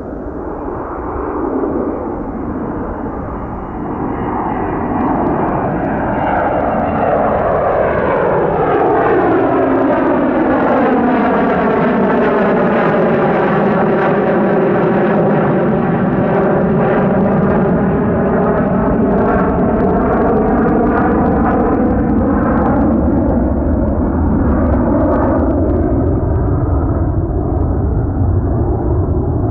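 A McDonnell Douglas MD-83's two Pratt & Whitney JT8D-219 low-bypass turbofans at takeoff power as the jet climbs out and passes overhead. The loud jet noise builds over the first several seconds, then holds, with a band of tones that slides down and then back up as the aircraft goes over.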